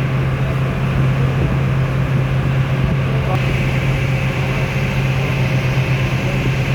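River ferry's engine running steadily under way, a constant low drone.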